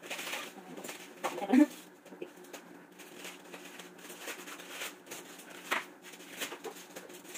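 Kitchen knife cutting and trimming a cabbage head over a cutting board: scattered crunches, taps and leaf rustles over a steady low hum, with one brief louder sound about a second and a half in.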